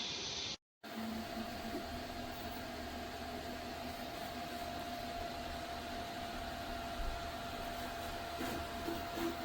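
3D printer running: a steady fan whir with a constant hum, cut off by a brief drop-out to silence just under a second in.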